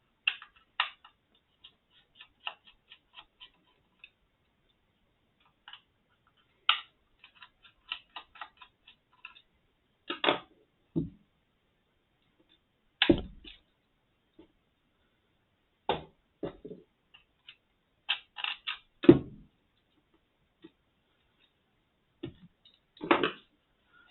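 Small screwdriver turning tiny screws out of a sound level meter's case: sparse light ticks and clicks, with about five louder knocks spread through.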